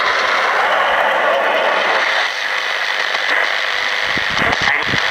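Sangean ATS-505 shortwave radio giving out steady hissing static from its speaker while tuned in the 31-metre band, with no station coming through. A few soft knocks come near the end as the tuning knob is handled.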